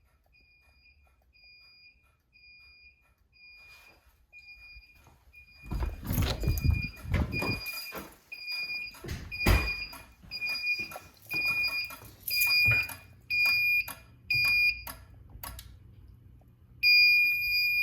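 Fire alarm system's electronic sounder beeping a high pulsed tone, about two beeps a second, growing louder partway through, with a few knocks in between. Near the end the beeping turns into a continuous tone.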